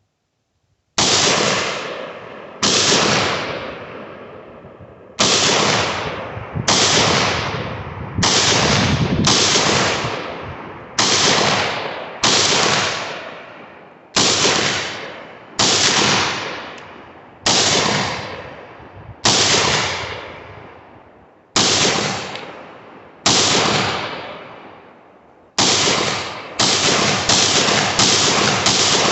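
A 7.62x39 AR pistol fired semi-automatically, about twenty single shots emptying a 20-round magazine, each one ringing out and fading over a second or so. The shots come one to two seconds apart at first and follow in a quicker string near the end.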